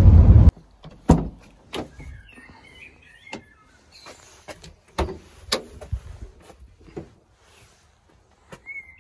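A series of irregular knocks and clunks from something being handled, with faint bird chirps in the background.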